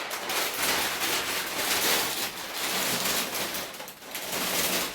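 Thin plastic protective film crinkling and rustling as it is handled and balled up, just after being peeled off a large TV screen: a dense, irregular crackle.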